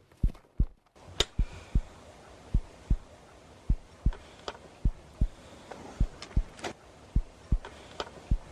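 Heartbeat sound effect: low thumps in close pairs, lub-dub, roughly one beat a second, over a faint steady hiss.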